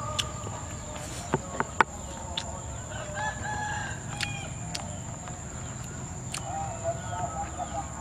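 Domestic chickens clucking, with a rooster crowing, in short wavering calls about three seconds in and again near the end. A few sharp clicks come between one and two seconds in, and a steady high whine runs underneath.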